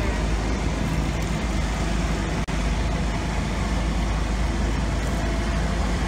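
Hot water poured from a pot, splashing onto icy concrete steps, over a steady low rumble of outdoor noise.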